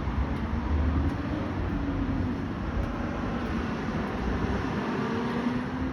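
Heavy vehicle running close by: a deep rumble under a droning engine note that wavers and drifts in pitch.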